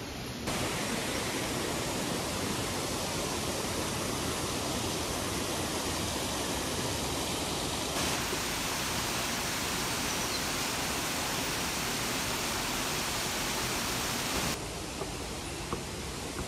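Steady rush of a mountain river, the Misen River, with no pause. Its tone changes abruptly about half a second in, again around eight seconds and near the end.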